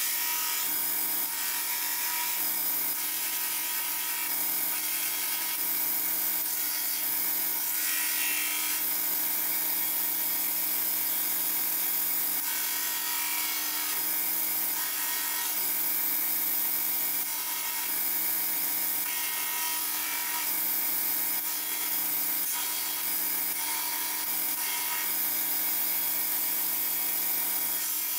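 Belt grinder running while a forged steel san mai knife blank is ground against the abrasive belt: a steady motor hum under a continuous grinding hiss that strengthens and eases every second or two as the blade is pressed and passed across the belt.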